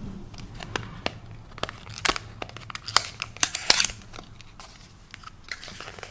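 Small makeup packaging being handled and opened close to the microphone: a run of sharp, irregular taps and clicks with brief crinkling and tearing of paper or plastic, busiest in the middle.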